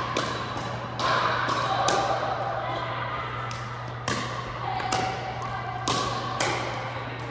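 Pickleball rally: paddles hitting the hard plastic ball back and forth, a sharp pop about once a second with a short echo after each. Underneath are a steady low hum and faint background voices.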